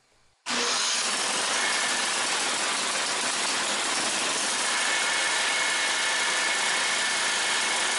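The 10 hp single-cylinder engine of a snowblower running steadily on a newly fitted replacement carburetor, its first run after the carburetor swap. The engine sound comes in abruptly about half a second in and holds at an even level.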